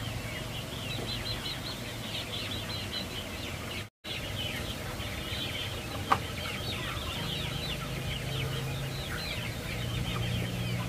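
Chicks peeping without a break, a dense stream of short, high, falling peeps. The sound drops out briefly about four seconds in, and there is one sharp knock about six seconds in.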